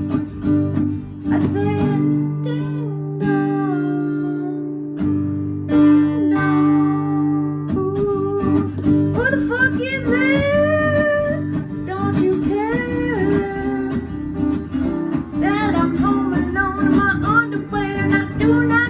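Music: acoustic guitar playing, with a voice singing at times over it.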